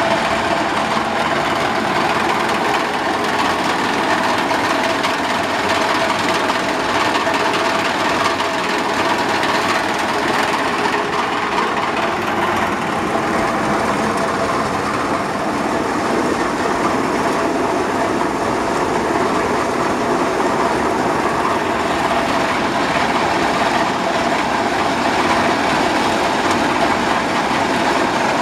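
Electric grape destemmer running steadily as grape clusters are tipped into its hopper: a continuous mechanical rattle and churn with a faint steady motor tone.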